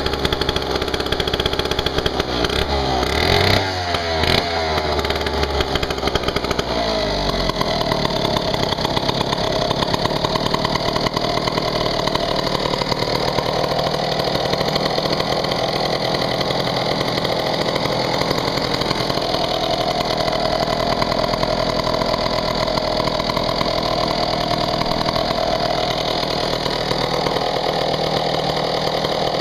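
Vintage McCulloch Model 47 gear-drive chainsaw's 77 cc two-stroke engine running, revved up and down in the first few seconds, then settling into a steady idle from about seven seconds in.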